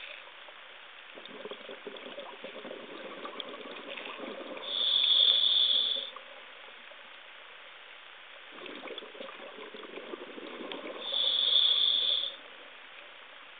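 Scuba diver breathing through a regulator underwater: two hissing inhalations of about a second each, roughly six seconds apart, each coming after a few seconds of bubbling exhaled air.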